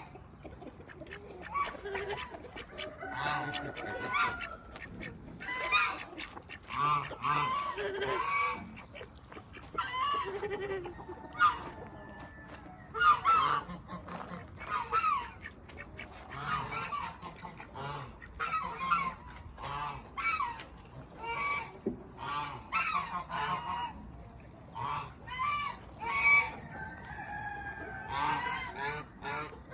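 Farm geese honking, many short calls repeated and overlapping one another.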